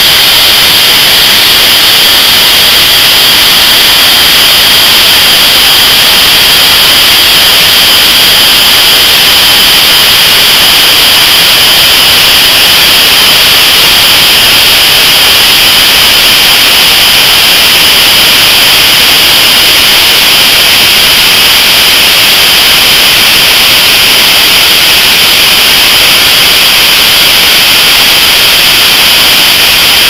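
Washing machine universal motor, with cap screws standing in for its brushes, running flat out at extreme overspeed on a microwave oven transformer's high voltage. It makes a loud, steady high whine over a hiss of arcing at the makeshift brushes.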